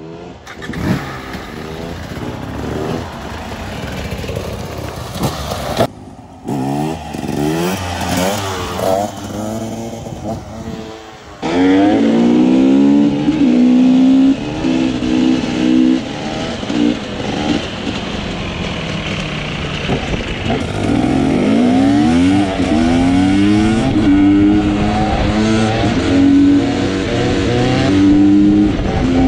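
Dirt bike engines revving, rising and falling in pitch again and again as the throttle is worked. From about eleven seconds in, one bike is close and louder, its revs going up and down as it is held up on the back wheel in a wheelie.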